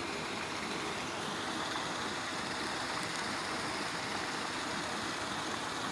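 Steady, even hiss of outdoor ambience, with no distinct sounds standing out.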